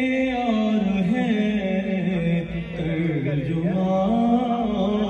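A man's voice chanting a manqabat, a devotional Urdu poem, into a microphone in long held notes that slide up and down. The melody dips to its lowest a little past three seconds in, then climbs again.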